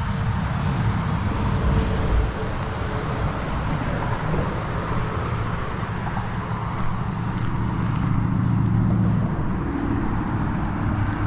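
Road traffic on a highway bridge, a steady rumble of passing vehicles that swells about eight seconds in as one goes by.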